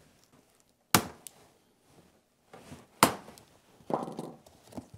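Plastic zip ties being snipped with cutters: two sharp snaps about two seconds apart, with fainter ticks and handling noise between.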